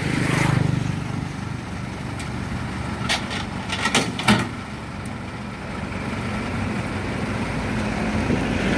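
Yanmar 82V combine harvester's engine idling steadily, with a few sharp metal clanks from steel ramp gratings being handled about three to four seconds in.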